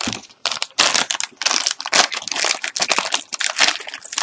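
Crinkling and rustling of HeroClix gravity feed pack wrappers being handled, a dense run of irregular crackles.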